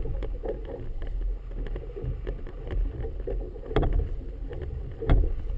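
Wind buffeting the microphone over choppy water lapping against a boat's hull, with scattered small knocks. Two sharper knocks come about four and five seconds in, the second the loudest.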